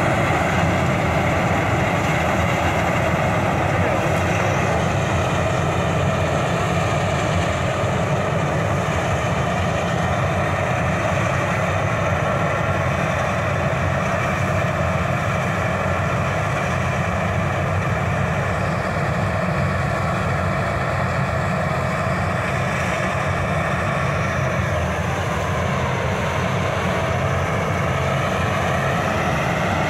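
Dasmesh 912 combine harvester running steadily under load as it cuts and threshes paddy. The engine and threshing machinery make a constant drone with high whining tones, some of which shift slightly in pitch near the end.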